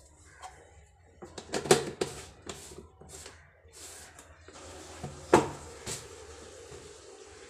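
Clatter of a plastic storage jar being handled: scattered knocks and taps as its screw lid is closed and the jar is moved, with one sharp knock about five seconds in.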